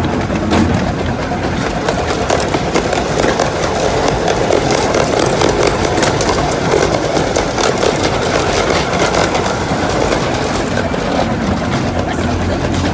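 A train running steadily along the track, heard from aboard: a continuous rumble with faint clicks from the wheels.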